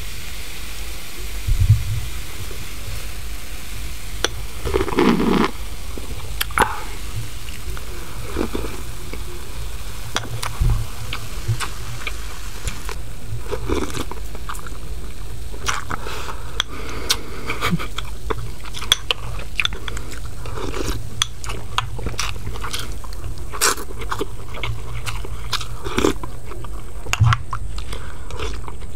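A person chewing and biting food close to the microphone, with crunches and scattered sharp clicks that come thicker in the second half, over a steady low hum.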